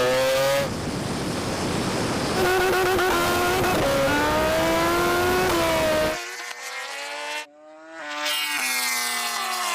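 Vehicles accelerating flat out in a drag race, with a heavy rush of wind. A high-revving engine climbs in pitch and drops back at each upshift, several times. The sound changes abruptly a few times.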